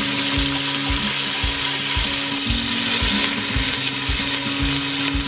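Chopped onion sizzling steadily in hot oil in an aluminium pressure-cooker pot, stirred with a wooden spatula.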